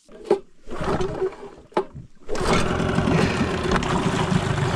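The dinghy's outboard motor running steadily, coming in about halfway through, after two sharp knocks and some shuffling.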